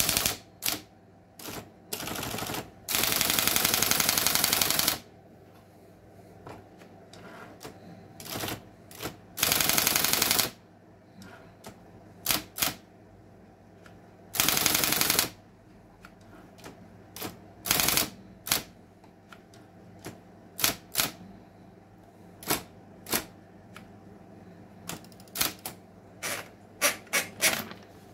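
Erika Präsident electric typewriter typing: single key strikes at uneven spacing, broken by several long rapid runs of strikes lasting one to two seconds, over a steady low hum.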